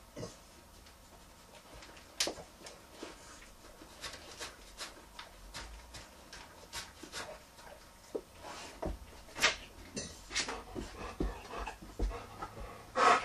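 Dog eating cat food from a small bowl on a countertop: irregular chewing, licking and smacking sounds, with a louder knock near the end.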